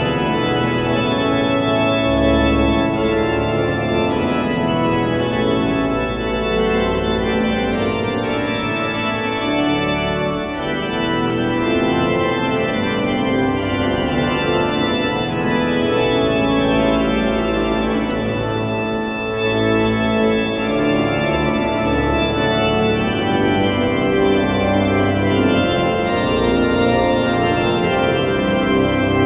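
Church pipe organ playing continuous polyphonic music: several held lines sounding together, shifting from chord to chord without a break.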